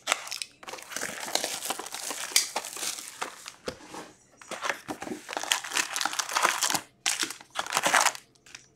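Clear plastic shrink-wrap being pulled off a hockey card hobby box and crumpled in the hands: irregular bursts of crinkling with short pauses.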